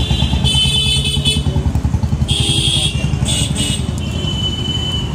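Street traffic: an engine running close by with a steady low throb, and three short horn toots over it.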